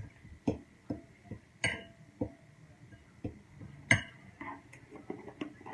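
Metal fork clinking and scraping against a glass mixing bowl while stirring shredded boiled chicken: a run of irregular light clinks, with a sharper knock about four seconds in.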